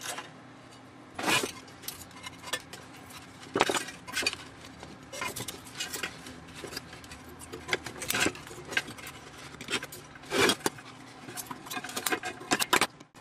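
Tin snips cutting the thin sheet-metal casing of a gas meter, with irregular sharp snips and metallic clinks as metal and tools are handled.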